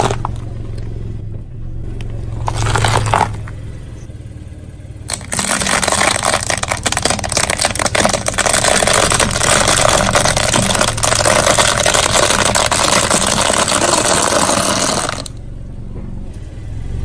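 A car tyre rolling slowly over foam tubes and crushing them: a long stretch of dense crackling and scraping lasting about ten seconds, starting about five seconds in. Before it, the car's engine hums low with a short scrape.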